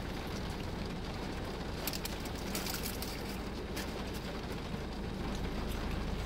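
Steady rain noise and low hum inside a car's cabin, with a few faint ticks or taps.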